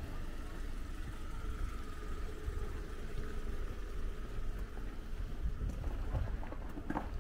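A motor vehicle's engine running steadily over a low rumble, with a few short knocks near the end.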